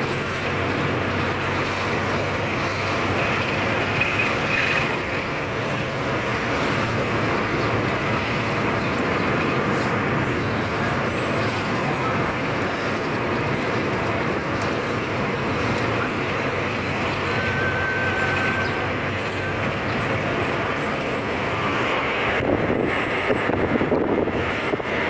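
Steady city traffic and road noise of a vehicle driving through streets, an even rumble and hiss. A brief high tone sounds about four seconds in and another near eighteen seconds, and the sound turns rougher and crackly near the end.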